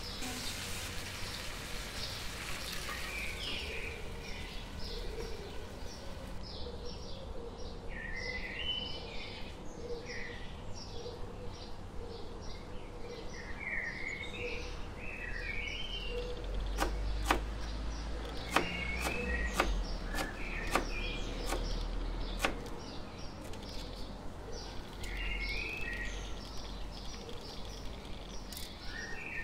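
Small birds chirping and calling over and over, in short high notes and quick two-tone phrases. A few sharp clicks come about halfway through.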